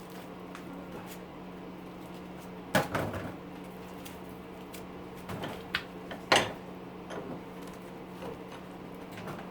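Scattered knocks and clicks of hand tools and metal parts being handled while stripping copper windings out of an electric motor, with two louder knocks about three and six and a half seconds in, over a steady low hum.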